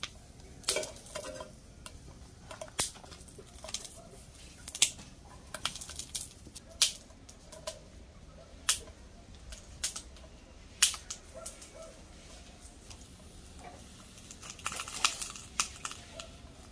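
Jalapeño chiles, onion and garlic toasting over heat: scattered sharp pops and clicks, about one every second or two.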